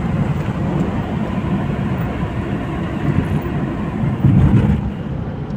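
Road and engine noise heard inside the cabin of a car driving at speed on a highway, a steady low rumble that swells louder for about half a second around four seconds in.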